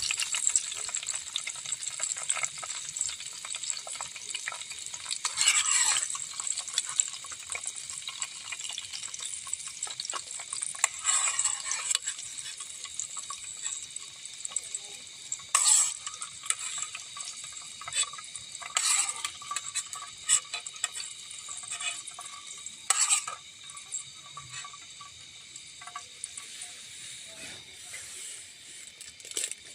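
Food sizzling in a cooking pot while a utensil stirs it, scraping against the pot now and then.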